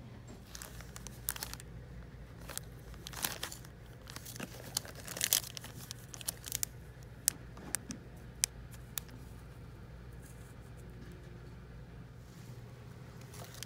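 Plastic packaging crinkling, with light clicks and taps as merchandise is handled, busiest over the first nine seconds and sparse after that. A steady low hum runs underneath.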